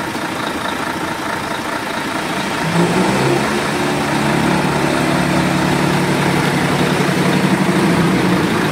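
Boom truck's engine running steadily at idle; about three seconds in it picks up to a higher, louder steady speed and holds there.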